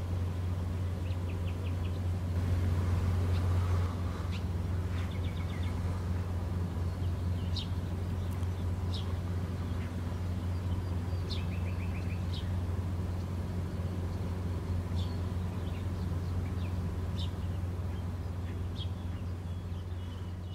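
Steady low drone of a tugboat's diesel engine across the water, briefly louder a few seconds in. Small birds chirp and give quick trills at intervals over it.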